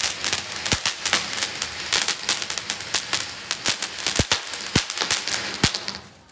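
Anar (flower-pot ground fountain firework) hissing as it sprays sparks, with a rapid, irregular run of sharp cracks and pops from the stars it throws off. It dies away near the end.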